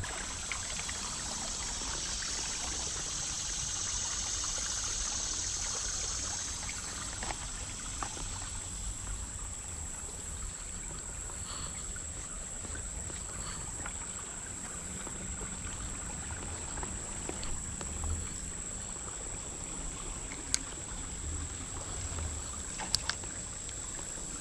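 Creek water flowing steadily through a current, with a thin steady high-pitched tone above it and a couple of sharp clicks near the end.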